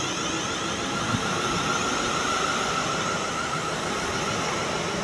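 South Western Railway electric multiple-unit train running past along the platform: a steady rushing noise of wheels on rail with a steady high tone above it.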